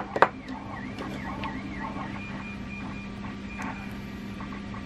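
Two sharp clicks near the start as small plastic Deans connector parts and tools are handled, over a steady machine hum with a warbling, wavering whine.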